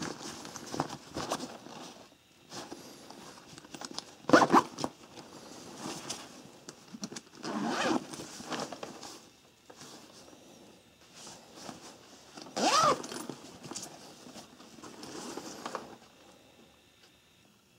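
Nylon fabric business bag being handled: rustling and scraping of the fabric and straps, with three louder swishes spread through it, growing quiet near the end.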